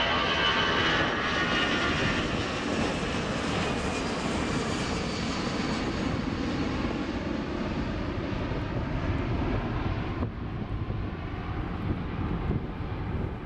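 Airbus A340-300's four CFM56-5C turbofan engines at climb power as the jet passes overhead and climbs away: a steady jet roar with a high whine in the first couple of seconds, the sound growing duller from about ten seconds in as it recedes.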